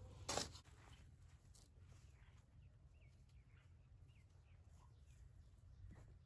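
Near silence: one thump just after the start, then a few faint bird chirps.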